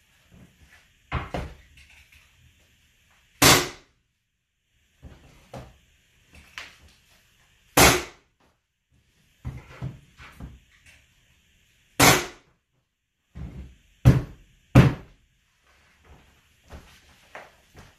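Pneumatic hardwood flooring nailer struck with a mallet, firing with sharp loud bangs a few seconds apart: six loud ones, two in quick succession near the end. Lighter knocks fall between them, with a faint hiss.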